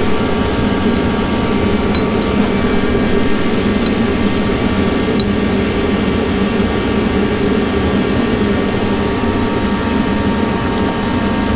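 Steady mechanical drone of a running machine, with a few faint metallic ticks.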